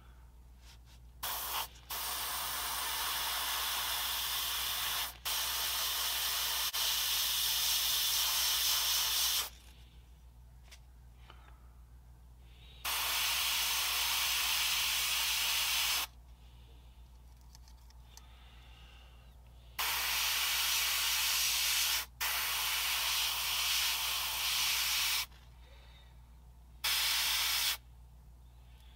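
Gravity-feed airbrush spraying thin flat yellow acrylic at high pressure: about seven bursts of hiss, each one to four seconds long, starting and stopping sharply with short pauses between.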